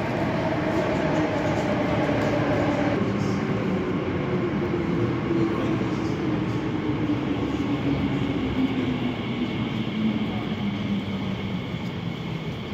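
Elizabeth line Class 345 electric train pulling into the platform and braking. Its traction motor whine falls steadily in pitch, with a sudden step down about three seconds in, over the rumble of the wheels.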